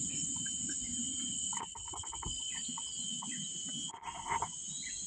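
Steady, high-pitched drone of tropical jungle insects, with short chirps scattered through it.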